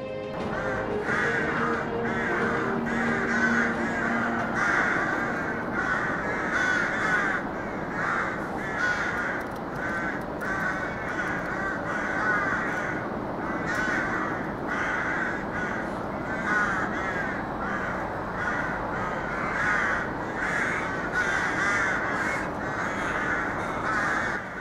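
A group of rooks cawing, with many harsh calls overlapping in a continuous chorus. Faint music fades out in the first few seconds.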